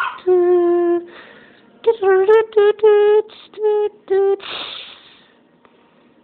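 A man vocalizing a tune as a sound effect, in the style of an old TV theme: a held note, then a string of short hummed "dun" notes at much the same pitch. The notes end in a breathy hiss about four and a half seconds in.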